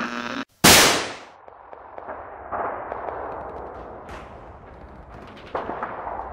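One loud sharp bang with a ringing decay, right after a brief cut to silence, followed by a quieter rumbling noise with scattered clicks.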